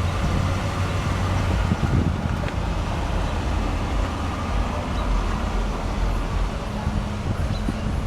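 2008 Pontiac G6 GT's 3.5-litre V6 idling steadily, a constant low hum under an even haze of outdoor noise.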